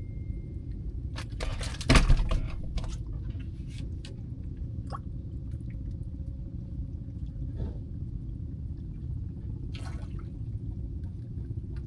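Water splashing and dripping over a steady low rumble, with a loud short burst of splashing and clatter about two seconds in.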